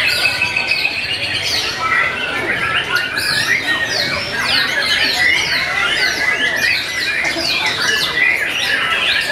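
Several caged white-rumped shamas singing at once in competition, a dense, unbroken tangle of rapid sweeping whistles and chirps.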